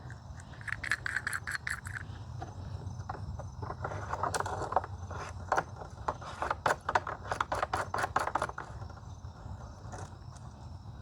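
Scraping and quick irregular clicks of small hard parts being handled and turned, as a panel-mount bulkhead connector and its nut are worked in the case. The clicking is busiest in the middle, from about three to nine seconds in.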